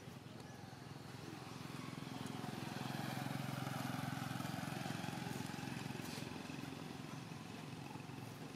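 A motor vehicle engine passes by, growing louder to a peak about four seconds in and then fading.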